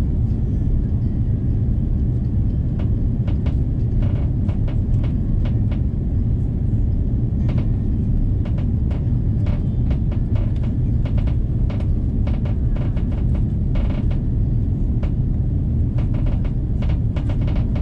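Airbus A330 cabin noise: a loud, steady low rumble, with frequent small rattles and clicks from the cabin fittings.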